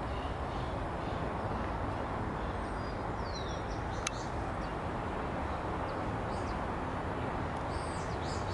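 Steady outdoor background noise, with faint high bird chirps a few seconds in and again near the end, and one sharp click about four seconds in.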